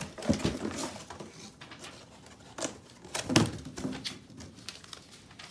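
Clear plastic wrapping crinkling and rustling in irregular bursts as it is pulled off a charging cable, loudest about three and a half seconds in.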